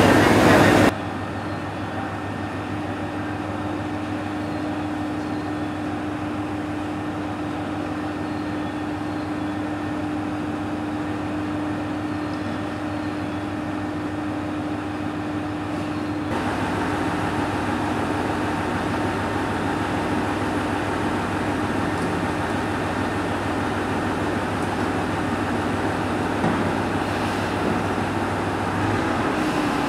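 ET122-1000 diesel railcar idling at a station platform: a steady engine and equipment hum with a constant low tone, a little louder from about halfway.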